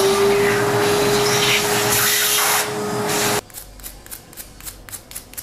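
Vacuum cleaner running with its hose nozzle over the lower burr of a Eureka Mignon Silenzio coffee grinder, sucking out coffee grounds: a steady motor whine over rushing air that stops suddenly about three and a half seconds in. Then a small brush scrubs the burr carrier with a faint, quick scratching.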